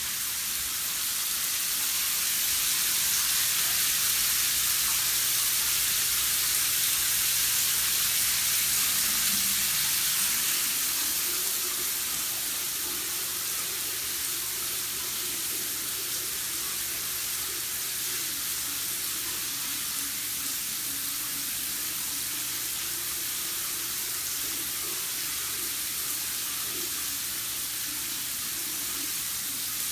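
Shower running: a steady hiss of water spraying onto a tiled shower floor, a little louder for the first ten seconds or so.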